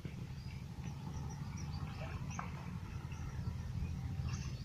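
Quiet rural outdoor ambience: a low, steady rumble with scattered faint high chirps.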